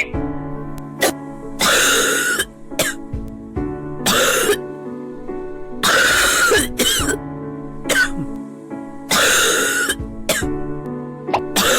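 Repeated coughing, a loud cough every two to three seconds with a few smaller ones in between, over steady background music.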